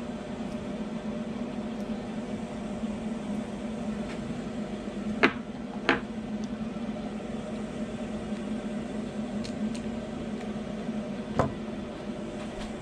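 A steady low hum in the room, broken by three sharp clicks of small parts being handled on a workbench: two close together about five seconds in, and one near the end.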